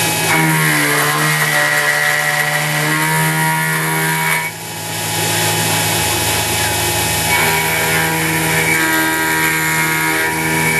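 Sieg X2 CNC mini mill cutting 6061 aluminium: a steady motor hum with stepper-motor whines that glide up and down in pitch as the axes move. The sound dips briefly about four and a half seconds in, then carries on.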